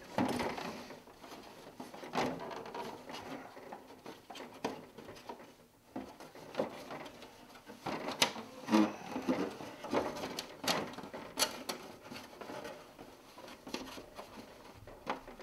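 Hard plastic toy castle parts being worked loose by hand: scattered clicks, taps and light scraping as a floor piece is pried out of the Castle Grayskull playset.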